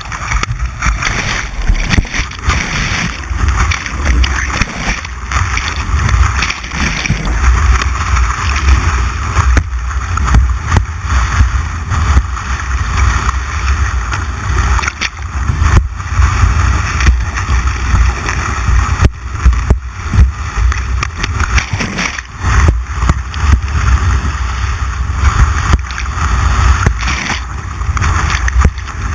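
White water rushing and churning around a kayak, picked up close by a camera mounted on the boat, with a heavy, uneven rumble of wind and splash buffeting on the microphone.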